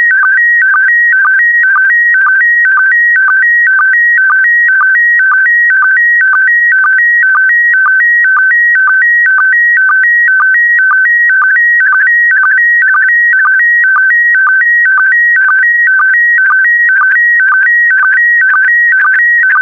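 Slow-scan TV (SSTV) signal in PD120 mode: a loud, high electronic warbling tone that hops between two close pitches, broken by a short sync pulse about twice a second. Each repeat carries a pair of scan lines of the picture being sent.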